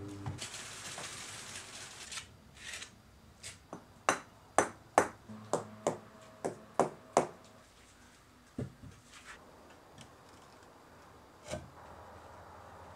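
A mallet tapping bricks into place while building a forge: a quick run of about nine sharp, ringing knocks a few seconds in, after a short scraping noise at the start, with a couple of lone knocks near the end.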